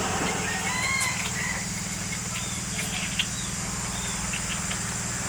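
Chickens clucking in a few short calls over a steady low hum.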